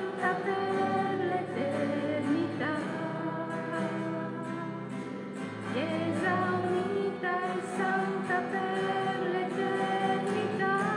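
Slow devotional hymn sung with long held notes and gliding changes of pitch, continuous throughout.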